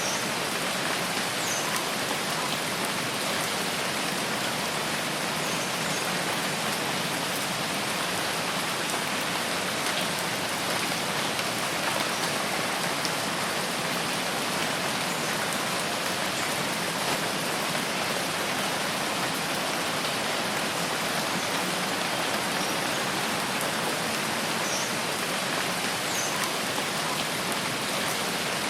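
Steady rain falling: an even, unbroken hiss of raindrops.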